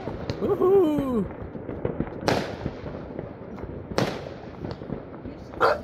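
Distant New Year's fireworks bursting: three loud bangs about two seconds apart with scattered smaller pops and crackles between them, each bang trailing off in echo. Near the start a person's voice calls out briefly, falling in pitch.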